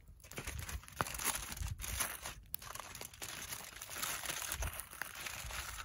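Heavy-duty aluminum foil crinkling as it is folded up around a fish to close a foil packet, an irregular rustle with small crackles.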